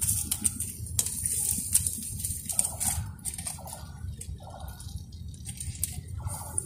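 Charcoal fire crackling and sizzling under fish grilling on a wire grate, with frequent sharp pops and clicks over a steady low rumble. A few short, rough mid-pitched sounds come in over the second half.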